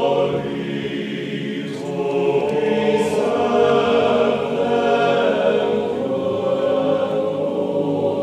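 A choir singing a slow piece in long held chords, with sung consonants hissing briefly about two and three seconds in.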